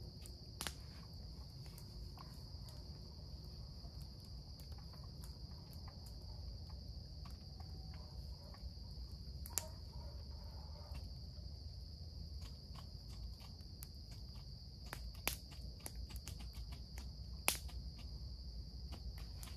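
Steady high-pitched chorus of night insects, with scattered sharp ticks, a few of them louder.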